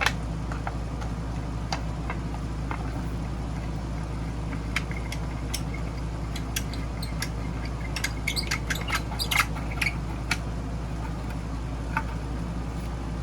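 Steady low hum of a Hiblow HP-80 linear diaphragm air pump running after its rebuild, with scattered light clicks and taps, most of them about eight to ten seconds in.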